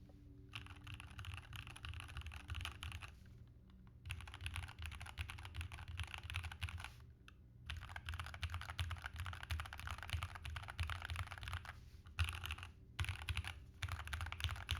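Royal Kludge RK84 mechanical keyboard, stock and unmodified, being typed on fast. Dense runs of keystrokes are broken by several short pauses.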